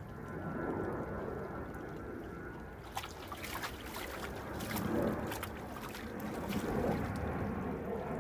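Dog splashing in the water of a plastic paddling pool, nosing and snapping at water from a garden hose. Quick splashes come thick from about three seconds in.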